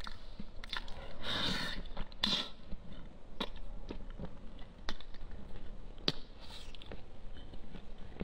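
Close-miked eating with the fingers: wet lip smacks and sharp mouth clicks every second or so as meat is sucked and chewed off a piece of braised chicken, with a longer slurp about a second in.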